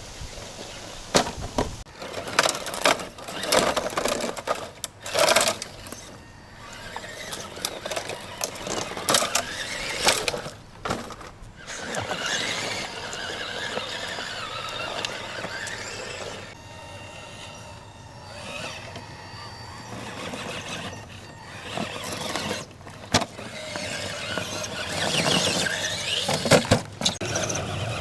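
Electric motor and gearbox of a Tamiya CR-01 scale RC crawler whining in short bursts, rising and falling with the throttle as it climbs over tree roots. Many sharp knocks and clunks come from the tyres and chassis striking roots and dirt.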